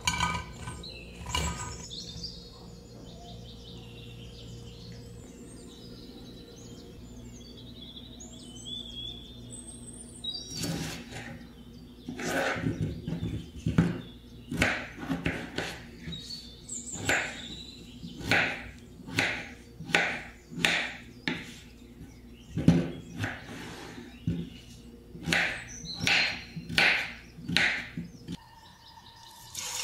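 A kitchen knife chopping peeled raw potatoes into cubes on a wooden cutting board. It makes a steady run of sharp chops a little more than once a second from about a third of the way in, over a low hum. Before that there is only the hum and some faint high chirps.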